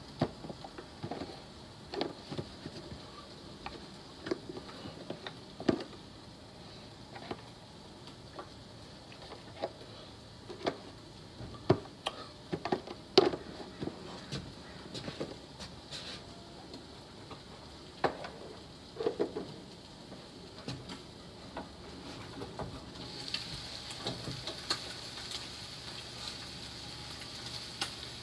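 Kitchen clatter of cooking: scattered knocks, taps and clinks of utensils and dishes, then about 23 seconds in a steady frying sizzle starts up in the pan.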